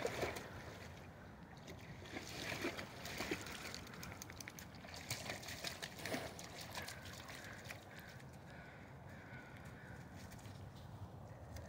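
Dog's paws splashing and sloshing as it wades through a shallow stream, in irregular bursts over the first several seconds, then quieter.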